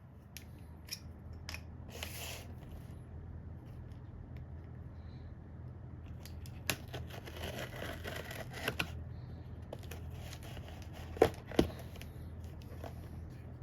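Unboxing sounds: scissors snipping and cardboard and plastic packaging being handled and rustled, with scattered small clicks and taps. Two sharp, louder clicks come about eleven seconds in, all over a steady low hum.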